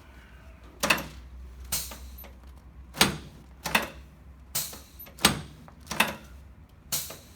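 A series of about eight sharp clacks from chiropractic adjusting on a treatment table, evenly spaced a little under a second apart.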